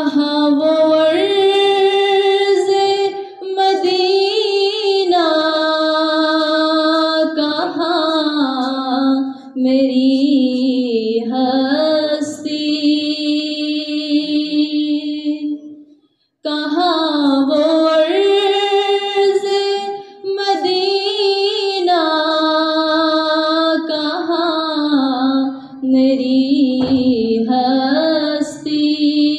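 A young woman's solo voice singing an Urdu naat into a microphone, in long, slow, wavering held notes. A short break comes about halfway, and then she sings the same melodic line again.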